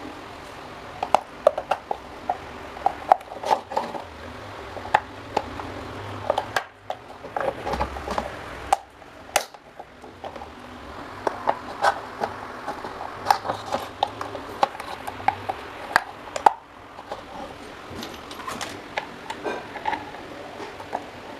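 Irregular sharp clicks and light knocks of hard parts and tools being handled, as in hands-on work on old electric fan parts.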